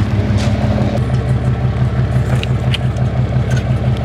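Pickup truck's engine idling steadily with an even low pulse, with a few faint clicks over it.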